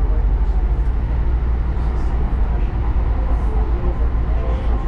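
Electric light rail train running along the track, heard from inside the car: a steady, even rumble that is heaviest in the low end.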